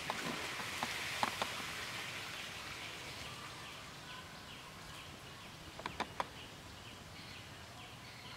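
Light rain pattering on a forest pool, with a few sharper drip clicks near the start and again around the middle. From about three seconds in, a short high chirp repeats steadily, about three times a second.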